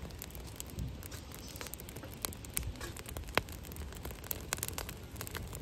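Split firewood burning in a metal fire pit, crackling with scattered sharp pops over a low steady rumble.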